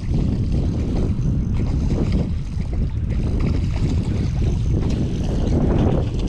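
Wind buffeting the microphone: a steady, loud, low rumble that rises and falls in gusts.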